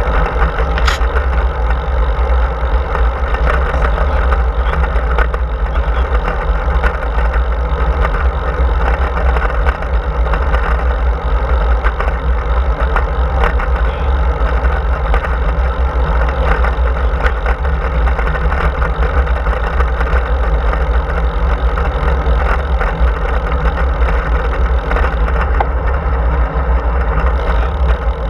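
Steady wind rush and buffeting on the microphone of a camera mounted on a moving road bike's handlebars, with the hum of the tyres rolling on asphalt underneath. It goes on evenly, without a break.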